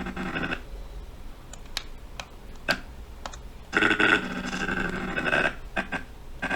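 A few sharp computer mouse and keyboard clicks, then from about 4 s in a louder stretch of short, chopped fragments of a recorded voice line playing back.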